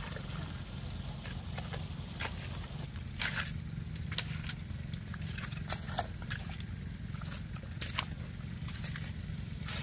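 Hoes scraping and slapping into wet paddy mud in irregular strokes as mud is heaped and patted into a rice-field bund, over a steady low rumble.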